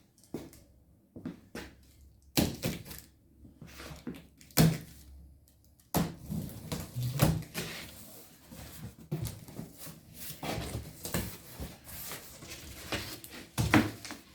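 Cardboard shipping box being opened and its packing handled: scattered knocks and thuds at first, then busier rustling and scraping of cardboard with knocks from about halfway through.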